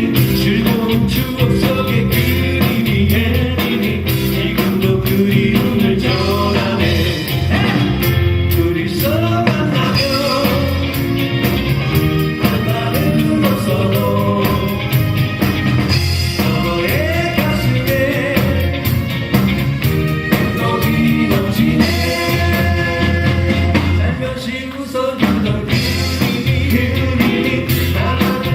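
A live band playing a Korean 1970s–80s group-sound pop song, with male lead vocals over drums, bass, electric guitar and keyboard. The band dips briefly a few seconds before the end.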